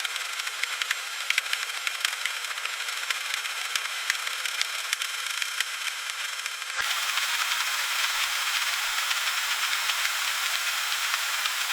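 Freezing rain: a steady high hiss with many sharp, irregular ticks of ice pellets striking a hard surface. About seven seconds in it switches abruptly to a louder, denser hiss with the separate ticks no longer standing out.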